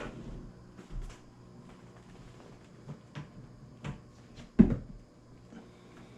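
A few short knocks and clunks, the loudest about four and a half seconds in, over a faint steady hum.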